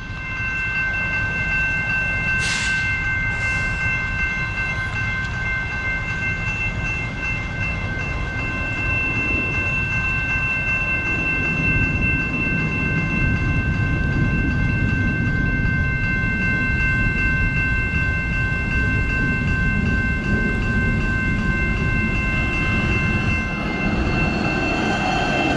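Hi-rail truck's train horn held in one long, steady chord of several tones, over the low rumble of the truck rolling on the rails, which grows louder in the second half. Two short hisses sound about three seconds in.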